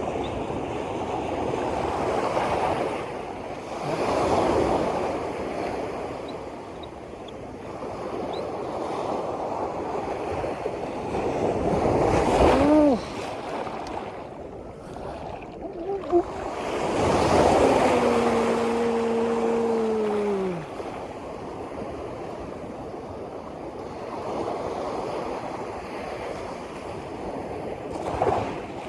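Sea waves washing and surging in repeated swells, with wind on the microphone. A little past the middle, a drawn-out tone slides slowly downward for a few seconds.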